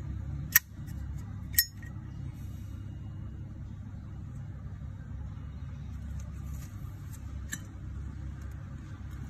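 Zippo Armor lighter's metal lid clicking open and snapping shut: two sharp clicks with a short metallic ring about a second apart, then a few fainter clicks of handling later on. A steady low rumble runs underneath.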